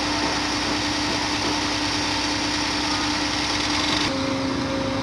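Diesel engine of a truck-mounted concrete pump running steadily. About four seconds in, its hiss drops away and its note steps slightly lower.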